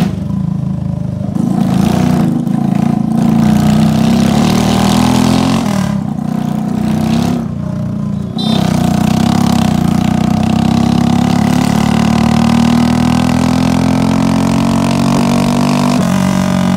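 Tractor engine running under way, a steady low drone whose pitch slowly rises through the second half as it gathers speed.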